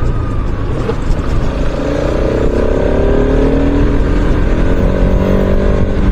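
Bajaj Pulsar RS200's single-cylinder engine pulling under acceleration, its note climbing slowly from about two seconds in, over a heavy rumble of wind on the microphone.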